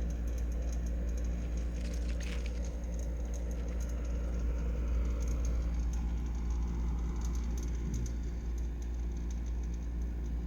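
Hitachi RD-200HG 10-litre dehumidifier running with a steady low hum, over which comes an irregular scratchy crackling and pattering, heaviest about two seconds in. This is the abnormal machine noise that the owner also heard on a replacement unit.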